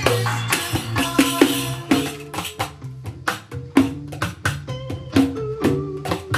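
A riq, the Arabic tambourine with jingles in its frame, played by hand in quick rhythmic strikes over a pop song, picked up by a camera's built-in microphones.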